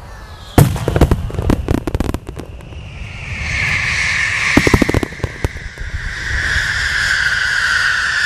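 Aerial fireworks shells bursting: a loud bang about half a second in, then a quick run of bangs. From about three seconds a steady hiss sets in under more scattered bangs, sinking slightly in pitch near the end.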